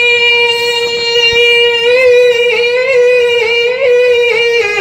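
A naat reciter's solo sung voice holding one long high note, steady at first and then wavering with small melodic ornaments in the second half.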